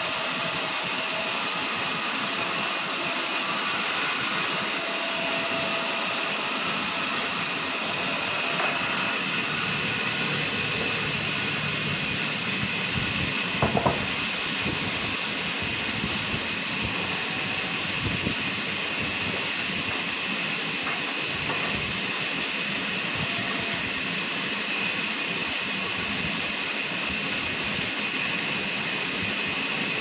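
Large sawmill band saw running and ripping lengthwise through a raw log: a steady high hiss. A brief knock about halfway through.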